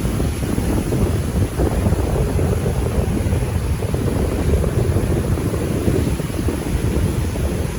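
Wind buffeting the phone's microphone, a loud, unsteady low rumble, over seaside surf.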